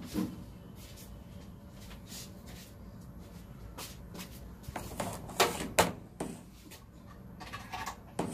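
Scattered knocks and clicks of a person moving about and handling things, with several sharper ones about five to six seconds in, over a faint steady hum.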